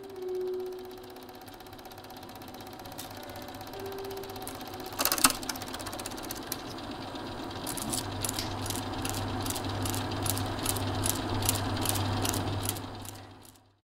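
Small machine clattering: a low hum with regular sharp clicks about three a second, building from about halfway and fading out just before the end. A burst of sharp clicks about five seconds in is the loudest moment, and a held music note dies away in the first second.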